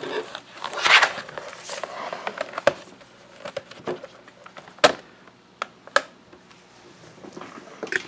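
Toshiba Satellite S55D-A5383 laptop being handled: turned over on a wooden desk and its lid opened. A scrape and rustle about a second in, then a few separate sharp knocks and clicks of the plastic and metal case, the loudest near the middle.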